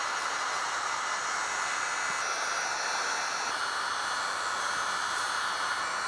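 Electric heat gun running, a steady blowing hiss of its fan and hot air, used to heat and seal the edges of taillight tint film.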